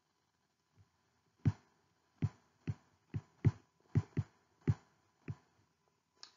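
A stylus tapping and knocking on a tablet screen while handwriting, about nine short irregular taps over some four seconds.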